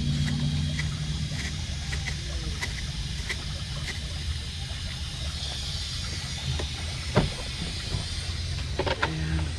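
A steady low mechanical hum with a hiss over it, light ticks about every two-thirds of a second, and a single sharp knock about seven seconds in.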